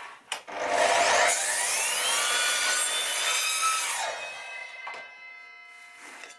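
Evolution R255 SMS-DB+ sliding mitre saw with a multi-material blade starting up with a rising whine, then cutting through a wooden board at a 45-degree bevel for about three seconds. Near the middle the cut stops and the blade winds down, ringing faintly.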